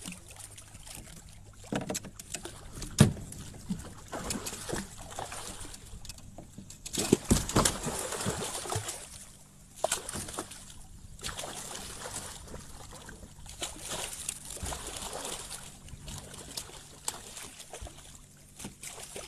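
Water sloshing and splashing against a fishing kayak, with irregular knocks and bumps on the hull, one sharp knock about three seconds in and a busier splashy stretch a few seconds later.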